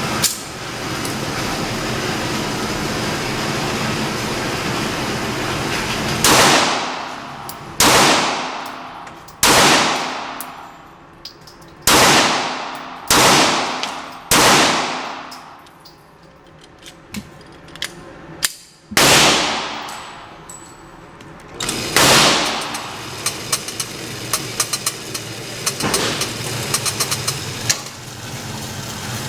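Glock 26 Gen 4 9mm pistol firing about eight shots in quick strings, each a sharp crack with a fading tail. A steady noise comes before the first shot, and faint small clicks follow the last.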